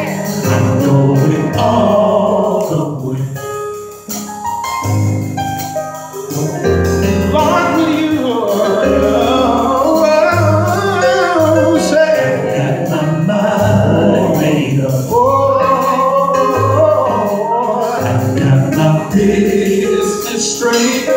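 Male vocal quartet singing a gospel song in harmony, several voices moving together over a low held bass part.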